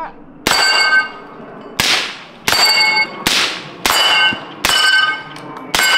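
Seven shots from a lightweight titanium-and-carbon-fiber AR-15 fired one-handed at the steel plates of a Texas Star target, roughly one every second. Most shots are followed by the ring of struck steel plates, and a couple ring out without it.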